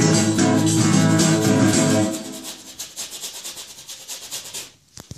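Guitar playing the closing chords of a song, which stop about two seconds in. A soft, even, scratchy rubbing carries on and fades, with a couple of clicks near the end.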